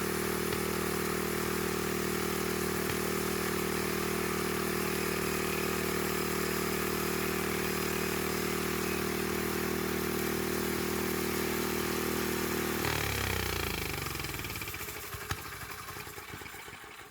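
An engine running at a steady speed, then shut off about thirteen seconds in, its pitch falling as it winds down.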